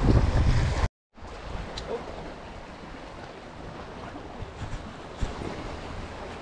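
Wind rumbling on the microphone, which breaks off abruptly just under a second in. After that, a quieter steady wash of waves with a few faint clicks.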